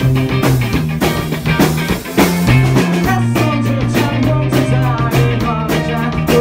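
Live rock band playing: two electric guitars, one a Fender thinline, over a low bass line that steps between held notes and steady drum hits, with a male lead voice singing into the microphone.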